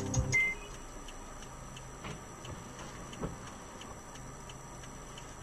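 Background music cuts off in the first half second, leaving faint, quick, regular ticking inside a car waiting at traffic lights.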